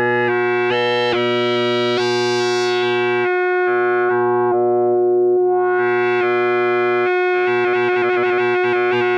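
Behringer Odyssey analog synthesizer holding a hard-sync tone while sample and hold modulates the sync, so the timbre jumps abruptly from step to step with the base pitch unchanged. The steps come faster near the end.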